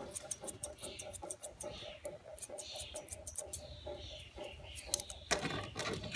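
Thinning shears snipping through the long hair on a Newfoundland dog's foot: a run of short, crisp metallic snips, a few each second. About five seconds in there is a louder rustle lasting about a second.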